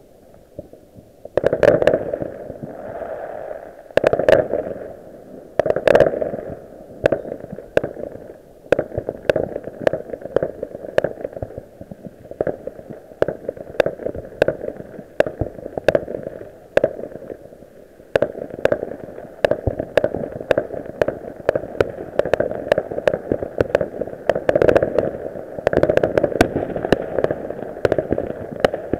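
New Year fireworks and firecrackers going off: a dense, irregular run of sharp bangs and crackles that starts about a second and a half in. The loudest blasts come in the first few seconds.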